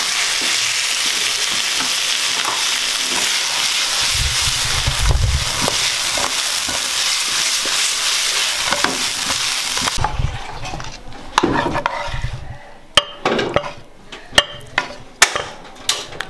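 Food sizzling and being stirred in a hot pan as it is sautéed. The sizzle cuts off about ten seconds in, and a run of sharp clicks and knocks follows, a utensil tapping against cookware.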